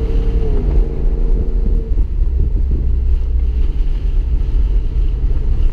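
The 5.7L Hemi V8 of a 2015 Ram 1500 with a muffler delete and Y pipe, heard from inside the cab. The engine note drops in pitch about half a second in, then settles into a steady low exhaust drone while driving.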